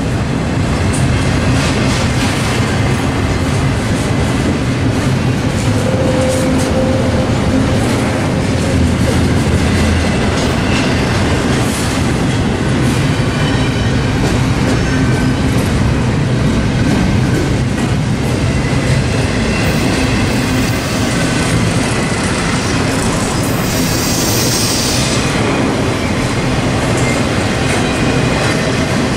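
Norfolk Southern intermodal freight train rolling past: the steel wheels of the stack cars and trailer flatcars rumble loudly and steadily and clack over the rail joints, with faint high wheel squeals now and then.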